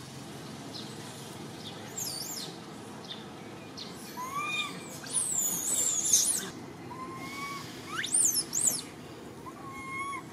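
Repeated high-pitched animal calls: short level whistles and quick squeals that sweep up and down, the loudest about six and eight seconds in, over a steady outdoor hiss.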